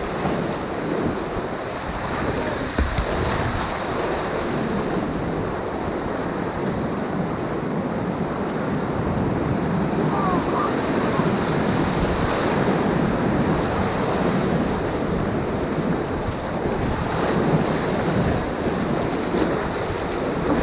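Class III whitewater rushing steadily around a kayak, with water noise on the microphone.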